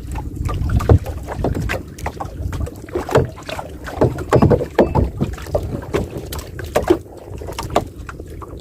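Sea water lapping and slapping irregularly, with gusty wind rumbling on the microphone.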